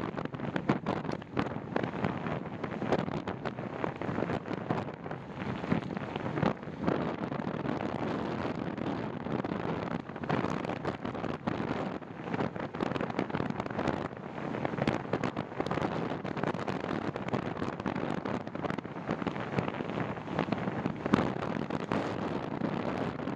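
Wind buffeting the microphone of a camera on a moving bicycle: an uneven rushing noise broken by many short gusty spikes.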